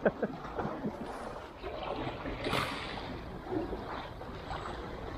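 Small waves washing and splashing against the rock breakwater, with wind on the microphone. One louder wash comes about two and a half seconds in.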